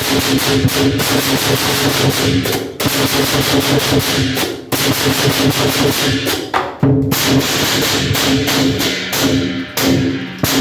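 Loud percussion music: rapid, continuous drumming with steady ringing tones underneath.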